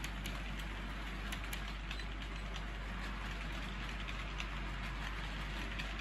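OO gauge model TEA oil tank wagons rolling along the track: a steady rumble with scattered small clicks from the wheels on the rails.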